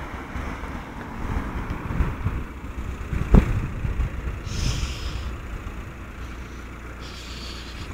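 Road traffic passing close by, a steady low rumble with one sharp knock about three and a half seconds in. Two short hisses come later, around five seconds in and again near the end.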